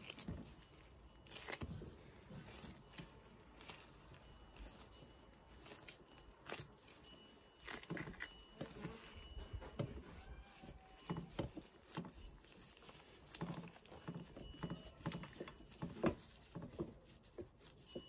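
Plastic-gloved hands patting and pressing a mugwort rice cake into roasted soybean powder on a stainless steel tray: soft, irregular pats, rustles and glove crinkles.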